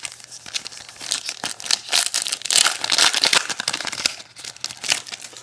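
Plastic wrapper of a trading card pack crinkling and tearing as it is ripped open by hand, loudest in the middle.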